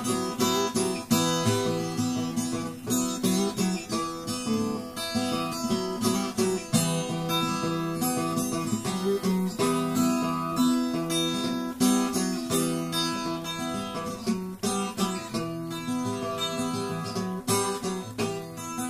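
Acoustic guitar music with many quick plucked and strummed notes.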